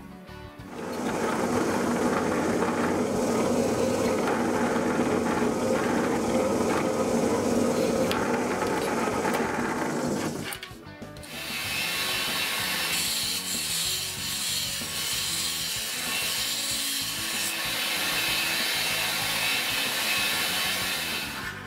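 A drill press running and boring into a wooden board for about ten seconds. After a brief break, a belt sander runs with a steady, bright hiss and a high whine.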